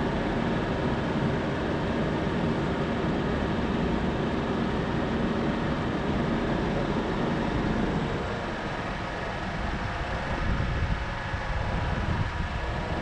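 Steady car noise, engine and road hum, as heard from a vehicle going through a drive-thru line. From about two-thirds of the way in the sound turns to an uneven low rumbling.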